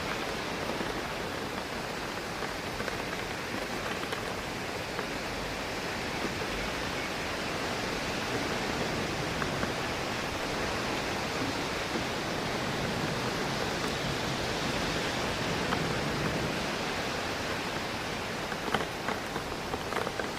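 Steady rain with wind rushing through trees, an even hiss of noise; a few sharper raindrop taps on the window glass near the end.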